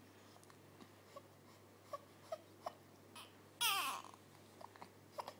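A baby fussing: a few short whimpers, then about three and a half seconds in one brief, louder cry that slides down in pitch, followed by more small whimpers.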